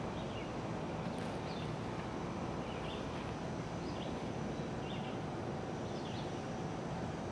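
A bird calling in short chirps about once a second over a steady low background rumble.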